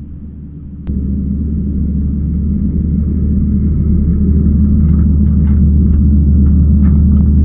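Kubota skid steer's diesel engine running under load, a steady low drone. It steps up sharply in loudness about a second in and keeps building slightly, with faint knocks and rattles of the machine working in the second half.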